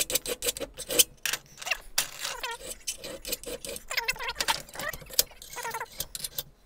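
Hand file scraping on a steel chipper-shredder knife clamped in a bench vise, sharpening its rolled-over edge, in quick repeated strokes with squeals. Later the metal clinks and rattles as the knife is shifted in the vise jaws.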